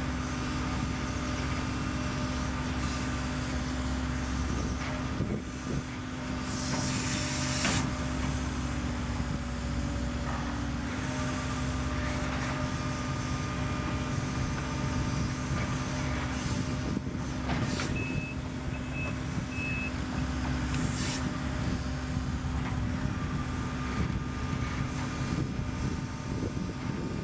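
Case CX130D long reach excavator's diesel engine running steadily with its hydraulics working as it digs, with a brief hiss about a quarter of the way in. About two-thirds of the way in, three short beeps of a travel alarm sound.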